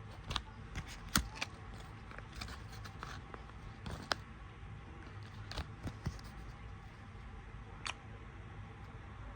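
Hands handling small fingerboard parts and packaging: scattered sharp clicks and taps with light rustling, over a steady low hum.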